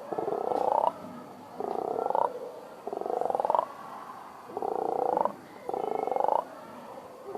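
A person beatboxing an imitation of a frog's croak with the mouth: a string of about six rasping, pulsed croaks, each under a second long and rising in pitch, repeated at a steady pace.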